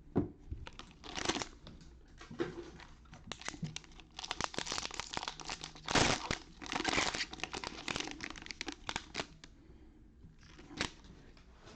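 Trading-card pack wrappers being torn open and crinkled by hand: irregular crackling and tearing, busiest in the middle, with a last short crinkle near the end.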